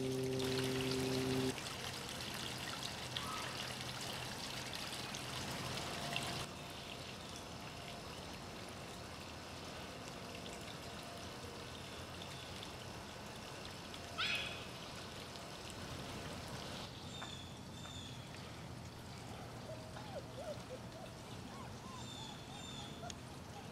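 Steady outdoor background hiss with no clear single source, broken by one sharp chirp about fourteen seconds in and a few short, high paired chirps near the end.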